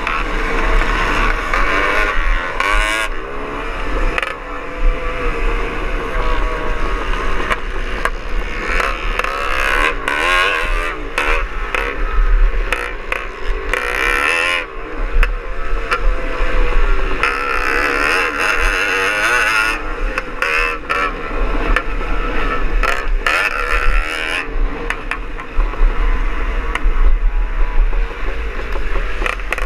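Onboard sound of a Greeves Hawkstone two-stroke single-cylinder scrambler engine under race load, revving up and down over and over as the rider works the throttle over the rough course. Wind rumbles on the microphone throughout, with frequent knocks and rattles as the bike hits bumps.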